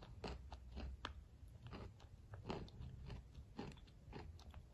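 Chewing a mouthful of clay porridge mixed with chalk: irregular crunches and crackles, about three a second.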